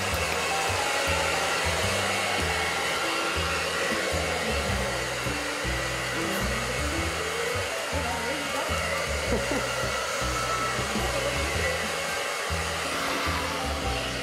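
Hand-held hair blow dryer running steadily, blowing air over wet Shih Tzus. Background music with a low bass line runs beneath it.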